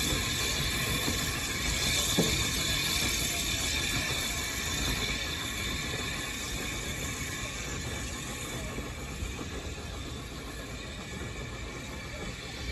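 A train running slowly away along the track, its sound slowly fading, over a steady hiss.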